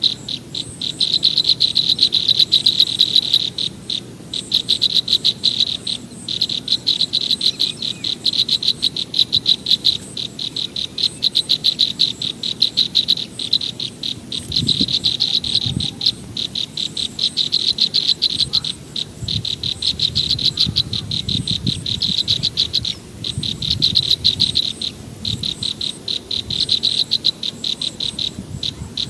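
Chorus of calling frogs and insects: rapid, evenly pulsed high chirping in trains that break off and start again every second or two. Faint low rumbles and knocks come and go in the second half.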